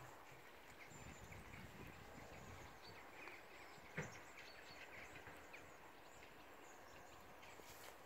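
Near silence: faint outdoor field background with a few faint bird chirps and a single soft knock about four seconds in.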